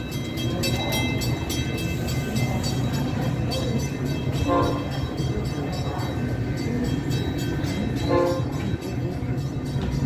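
Metra commuter train hauled by an F40PH diesel locomotive, its stainless-steel bilevel cars rolling past with a steady low rumble. Two short horn toots come through, about four and a half seconds in and again about eight seconds in.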